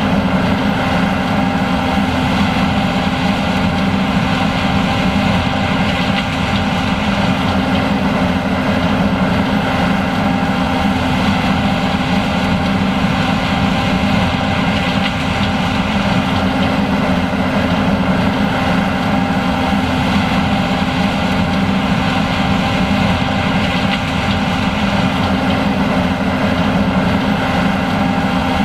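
John Deere S780 combine running steadily while harvesting corn: a constant, unchanging mechanical drone of diesel engine and machinery.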